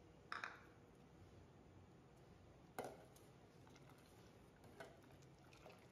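Near silence broken by a few faint, short clicks and taps, the sharpest a little before 3 s in: a steel ladle touching the stainless steel pot as it stirs the rasam.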